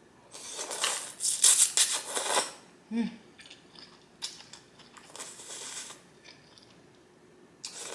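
Close-up mouth sounds of eating hot shrimp wonton soup: a long, loud, noisy slurp, a brief hummed voice sound about three seconds in, then quieter slurping and chewing.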